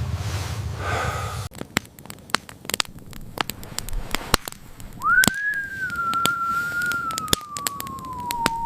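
A single long whistling tone about five seconds in, rising quickly and then sliding slowly downward, over scattered sharp clicks and crackles.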